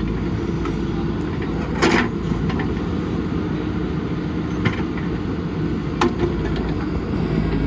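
JCB backhoe loader's diesel engine running steadily under work. A few sharp knocks come through it: one about two seconds in, one at about four and a half seconds, and two close together around six seconds.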